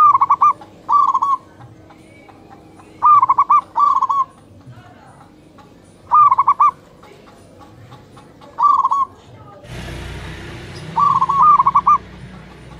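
Zebra dove (perkutut) cooing: short phrases of quick, bubbling coos, a new phrase every one to three seconds. A steady rushing noise comes in near the end.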